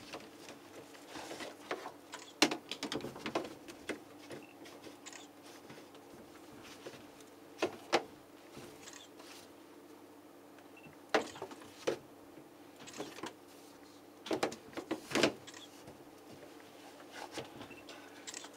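Scattered clicks and knocks of the tumble dryer's plastic door and fluff filter being handled, over a steady low hum.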